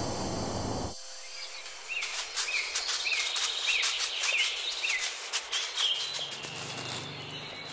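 A steady hiss cuts off suddenly about a second in. Then a plastic bag of agarwood chips rustles and crackles as it is handled and opened, while a bird repeats a short chirp about twice a second.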